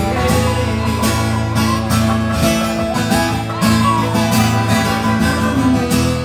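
A small live band playing amplified music, with an acoustic guitar strummed at the front. The music fades away near the end.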